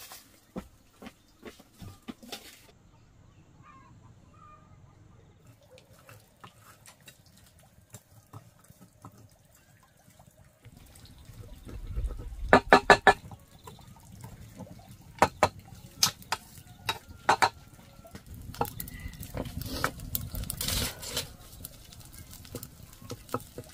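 A wooden stick stirring cooked rice in a metal pot over a wood fire: scraping and sharp knocks against the pot, starting about halfway in.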